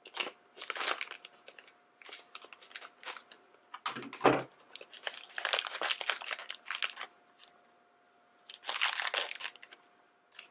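Small plastic blind-bag packet crinkling and being torn open by hand, in several separate bouts of rustling, with a soft thump about four seconds in.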